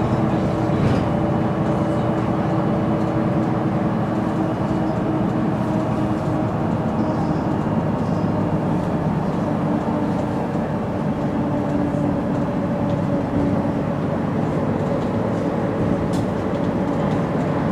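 Mercedes-Benz O530 G articulated bus, its rear-mounted six-cylinder diesel and drivetrain running, heard from inside the passenger saloon: a steady, dense hum with a held tone that fades slightly in the second half.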